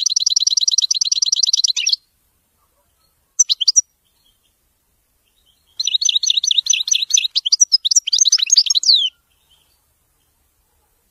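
European goldfinch singing. It opens with a fast, even trill of about two seconds, gives a brief pair of notes, then a three-second phrase of rapid high twittering that ends in a few quick downward-sliding notes.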